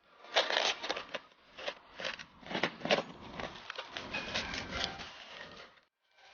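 Packaging being opened and handled by hand: crinkling and rustling with irregular clicks and taps. It stops abruptly near the end.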